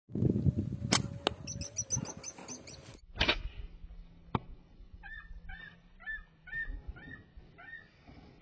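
A lapwing calling in a run of short, sharp notes, about two a second, over the second half. Earlier come several sharp cracks, the loudest about a second in and again about three seconds in, with a few quicker high calls between them.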